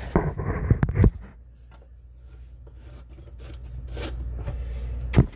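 Handling noise from a phone being set down: knocks and rubbing on the microphone, then faint scattered clicks and scrapes, with one sharp knock near the end.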